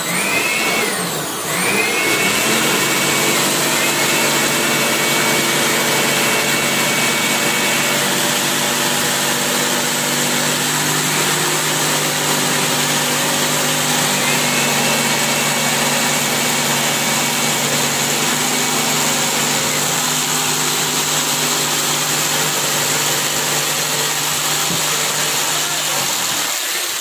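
Handheld electric jigsaw running steadily as it cuts a wood-grain board across to length, winding down near the end.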